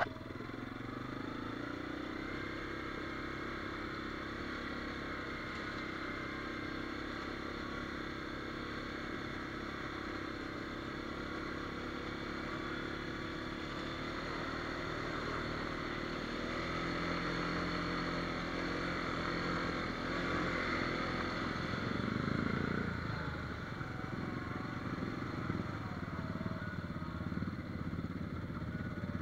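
ATV (quad) engine running under way on a dirt trail, its pitch mostly steady with some rise and fall in the second half and a rougher, noisier stretch about two-thirds of the way through.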